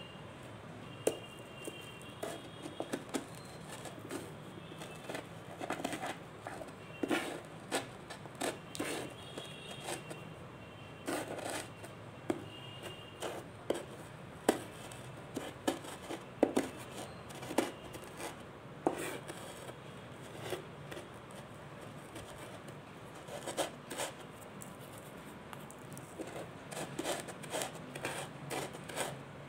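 Mothballs being crushed by hand: irregular crisp crunches, cracks and scrapes, some in quick clusters.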